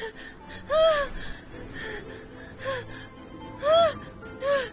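A woman's short, high-pitched gasping cries of strain and distress, about four of them, with dramatic background music beneath.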